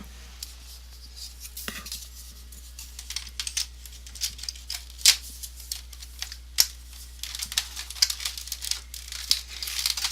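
Plastic keyboard case parts being handled and fitted together: scattered light clicks, taps and rustles, with a couple of sharper clicks about halfway through, over a low steady hum.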